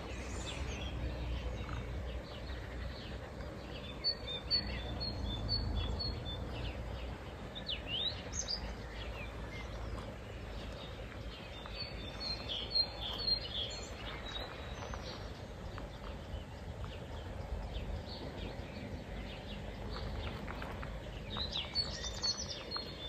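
Small birds chirping in three bouts of quick, repeated high notes, with a few rising whistles between them, over a steady low background rumble.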